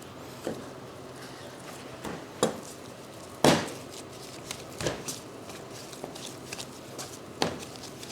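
Irregular knocks and taps of a knife and pieces of beef tenderloin on a cutting board during butchering, with one louder knock about three and a half seconds in.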